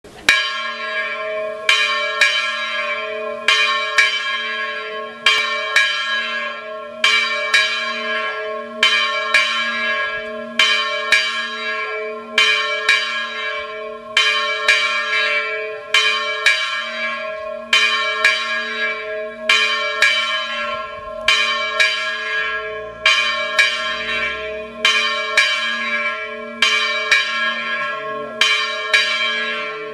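Church bells ringing the first call to Sunday mass. A strong stroke comes about every second and three-quarters, with lighter strokes between, and the bells' tones hum on without a break.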